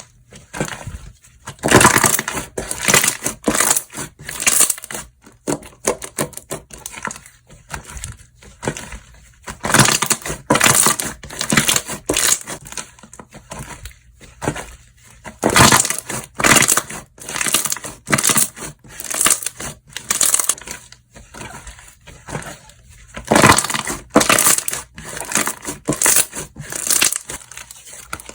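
Hands squishing and pressing slime, giving irregular clusters of crackling clicks and squelches.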